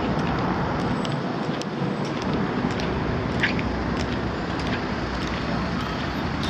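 Steady outdoor city noise with a heavy low rumble, the kind made by street traffic, with a few faint clicks scattered through it.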